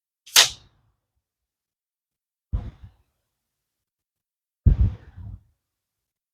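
A moderated .22 PCP air rifle at full power fires a single sharp shot about half a second in. Two duller low thumps follow, at about two and a half seconds and about five seconds.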